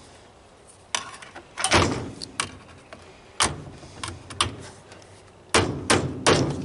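Irregular sharp plastic clicks and knocks, about eight of them, as snap tabs on a washing machine's plastic panel are pried and worked loose by hand.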